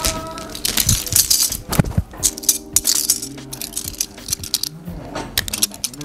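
Metal parts jangling and clinking in quick, irregular rattles as wires with metal terminals are handled and wound into a heater coil.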